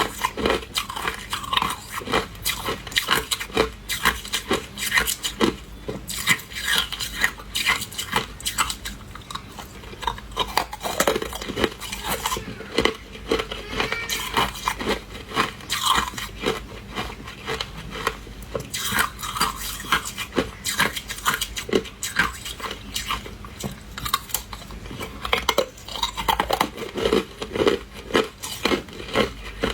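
Hard ice being bitten and chewed: a continuous, irregular run of sharp crunches and cracks.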